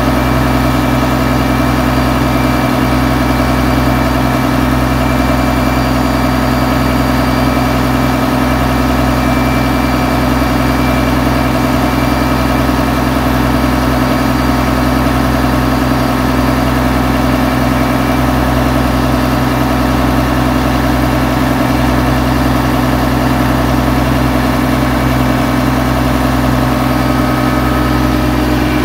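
The engine of a wooden passenger ferry boat running steadily while under way, a constant loud drone with a steady hum in it, with water rushing along the hull.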